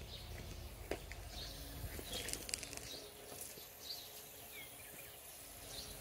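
Faint outdoor ambience with small birds chirping, short high chirps about once a second and one brief falling call midway. A few light clicks sound about a second in and again around two seconds.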